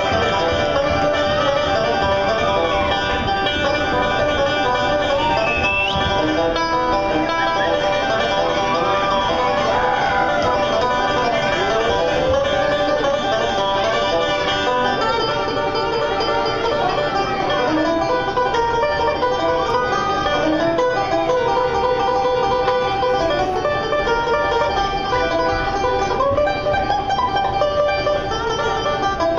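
Five-string banjo played solo, a continuous run of picked notes with some notes bending up and down in pitch, heard from a theater balcony through a handheld camera's microphone.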